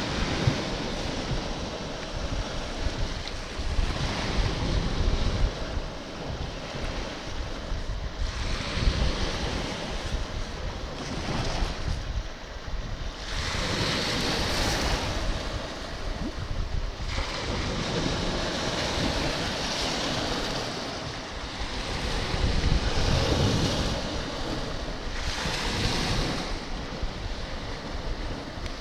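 Sea waves washing at the shore, swelling and falling every few seconds, with gusting wind buffeting the microphone.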